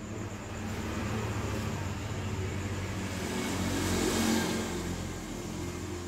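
A motor vehicle's engine passing by, growing louder to a peak about four seconds in and then fading, over a steady low hum.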